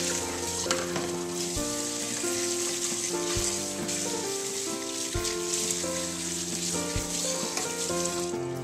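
Tap water running and splashing onto soaked sticky rice in a stainless-steel colander as hands rub the rice to rinse it, with background music playing throughout.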